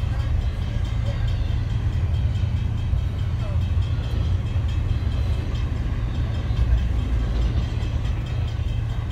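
Florida East Coast intermodal freight train of container and trailer flatcars rolling past a grade crossing: a steady low rumble of wheels on rail.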